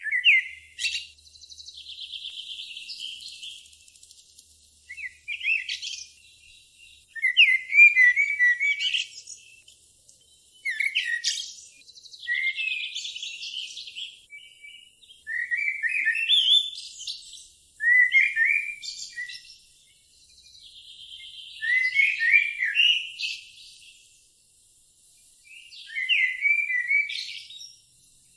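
A bird singing: varied phrases of sharp chirps, quick whistled slides and buzzy trills, one phrase every two to four seconds with short pauses between.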